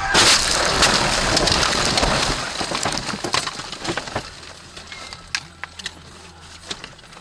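A head-on car collision heard from inside the car: a sudden loud crash about a quarter second in, then a few seconds of loud crunching and scraping as the car goes into roadside bushes. After that come scattered sharp clicks and rustles of branches and settling debris.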